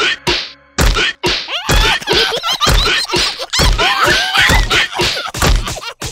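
Cartoon slapstick fight: a rapid string of about eight whacks and thuds, with the characters' squealing, wordless cries between the hits.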